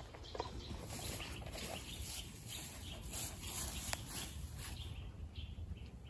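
Woodland ambience: a steady low wind rumble on the microphone with faint bird calls, and a single sharp click about four seconds in.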